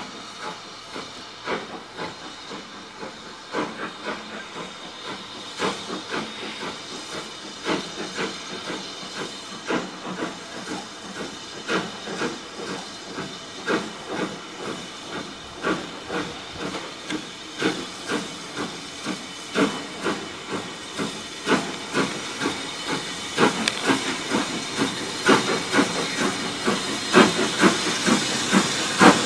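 BR Britannia Class 7MT 4-6-2 steam locomotive No. 70013 'Oliver Cromwell', a two-cylinder engine, working slowly under steam. Its exhaust beats come roughly one a second over a steady hiss of steam from the cylinders, growing louder as it draws near.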